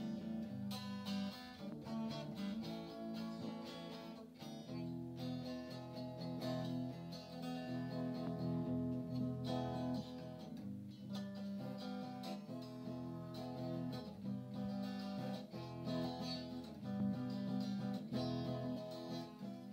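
Background music: an acoustic guitar picked and strummed.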